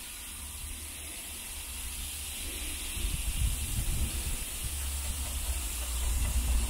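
Compressed air hissing steadily out of the VB-SemiAir auxiliary air springs on the rear axle as they are let down fully from about 7 bar. A low rumble joins about halfway through.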